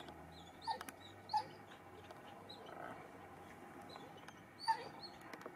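A dog giving three short yips, two close together in the first second and a half and one more near the end.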